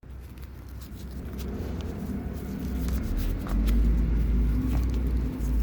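Honda NSF100 motorcycle's single-cylinder engine running with a low rumble that gets louder about three seconds in, with scattered faint clicks.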